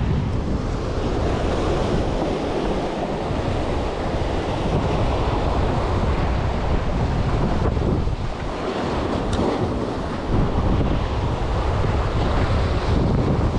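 Wind buffeting the microphone over a steady wash of sea surf.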